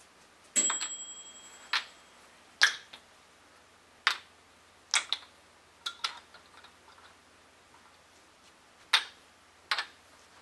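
Wooden kendama clacking as the ball lands on the cups and spike: about a dozen sharp clicks at uneven intervals, some in quick pairs. The first, about half a second in, is the loudest and trails off slowly.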